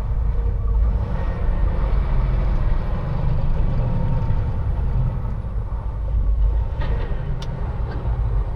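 Semi-truck's diesel engine and road rumble heard from inside the cab as the rig rolls slowly, with a short sharp click about seven and a half seconds in.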